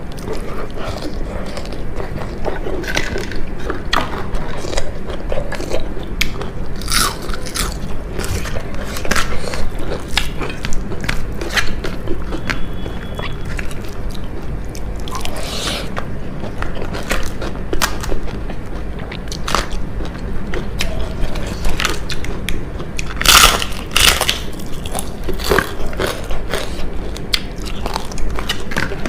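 Close-miked mukbang eating: crisp fried food being bitten and chewed with loud, irregular crunches and crackles, the loudest bites about 23 seconds in.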